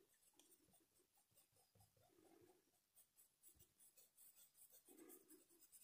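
Near silence, with the faint scratchy rubbing of a small paintbrush on cloth diaper fabric in short repeated strokes, as fabric paint is blended into the painted skin.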